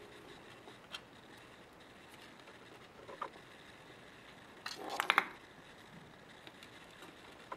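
Kitten batting at a small ball inside a wooden peek-a-boo puzzle box: a few light taps, then a quick cluster of sharp clicks and knocks about five seconds in as paws and ball hit the wooden box.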